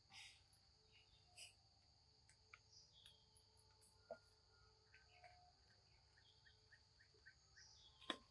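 A faint chorus of insects making a steady high-pitched buzz. In the later seconds it is joined by a run of short, high chirps, and a single sharp click comes near the end.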